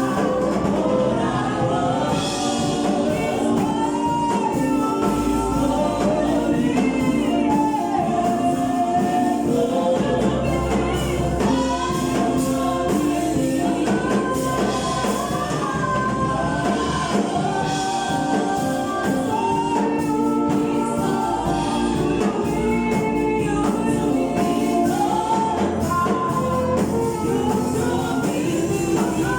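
A gospel choir singing a worship song, with sustained chords and a bass line underneath.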